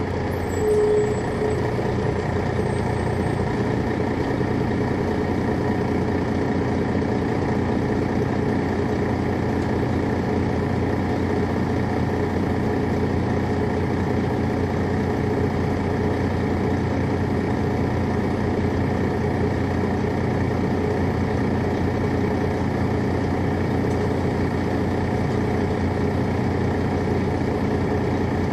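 The Detroit Diesel Series 60 engine of a 2001 MCI D4000 coach running at a steady, unchanging note. A short higher tone sounds once about a second in.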